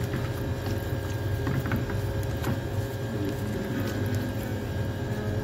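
A steady low machine hum, with a few faint short wet squishes and crinkles as a plastic-gloved hand rubs marinade into a whole raw chicken.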